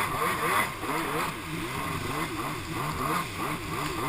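Stand-up jet ski's two-stroke engine revving up and down over and over, its pitch rising and falling about twice a second as the throttle is worked in the surf.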